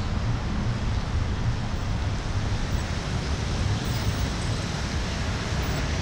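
Street traffic noise, with an SUV driving slowly past close by.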